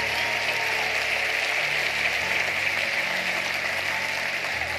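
A congregation applauding steadily, over soft background music of low held notes that change every couple of seconds.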